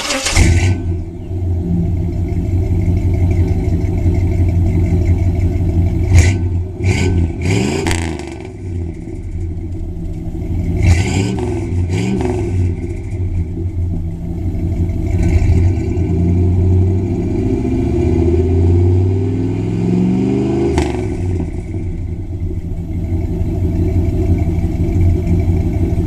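Chevy 350 small-block V8 breathing through Flowmaster mufflers, idling with the throttle blipped: quick revs about six, eight and eleven seconds in, and a longer rev climbing in pitch about three-quarters of the way through before dropping back to idle.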